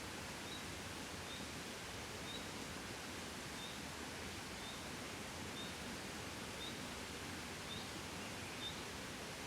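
Gentle breeze blowing as a steady, soft rush of wind. A faint, short, high chirp repeats about once a second.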